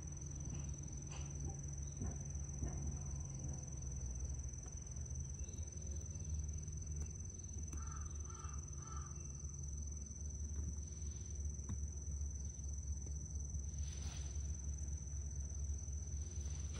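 Insects trilling steadily on one high note over a low steady rumble, with a bird calling three times in quick succession about halfway through.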